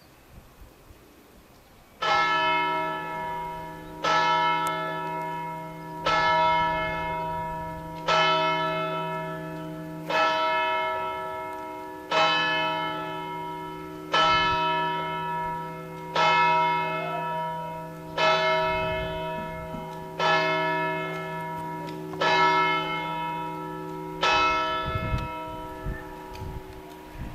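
A single church-tower bell struck twelve times, one stroke about every two seconds, each stroke ringing on and fading into the next: the tower clock striking twelve.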